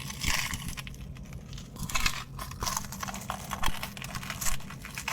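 Close-miked chewing of a crispy fried Korean corn dog: an irregular run of crisp crunches and clicks, over a steady low electrical hum.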